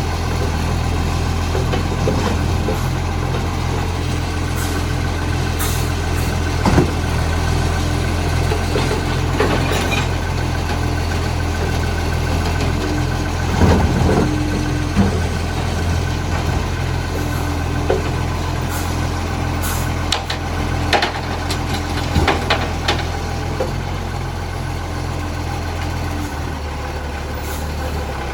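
Recycling garbage truck's engine idling steadily, with the exhaust leak in its note, and a few sharp knocks along the way. The low engine note shifts near the end.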